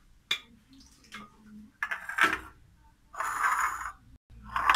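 Bowls and dishes being picked up and set down on a hard surface: a sharp click, light knocks and a louder clatter, then about a second of scraping as a dish slides across the surface, and another clatter near the end.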